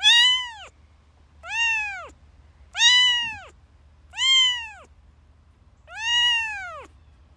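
Domestic cat meowing five times, each meow rising and then falling in pitch, with short pauses between them.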